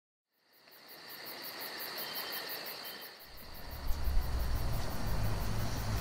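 A high, rhythmic chirping fades in, pulsing about six times a second over a steady high tone. About three seconds in, a low rumble joins it and grows louder.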